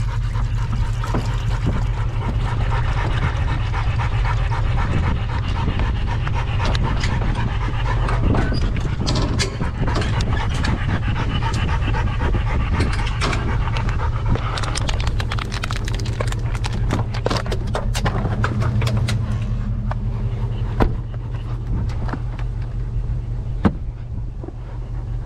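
Hunting hounds panting rapidly in a metal dog box on a pickup, worn out after a chase and a fight with a coyote. The truck's engine runs underneath, with scattered clicks and rattles.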